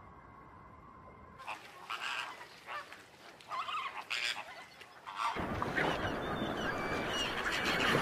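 Flock of waterbirds giving goose-like honking calls: scattered calls from about a second and a half in, then from about five seconds in many birds calling at once over a steady rushing wash of noise.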